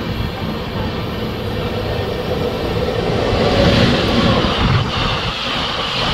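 Passenger express train running on the rails: a steady rumble and rattle of the coach wheels, growing a little louder about three to four seconds in.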